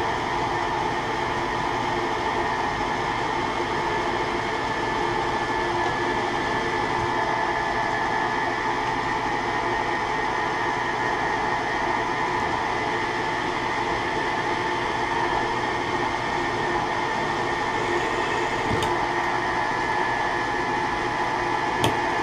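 Vertical milling machine's spindle running steadily with a drill bit in its chuck, drilling a half-inch-deep hole into a small part held in a machine vise. A couple of light clicks sound near the end.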